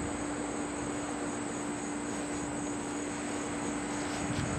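Steady outdoor background noise: a constant low hum under an even hiss, with a steady high insect buzz, and no distinct events.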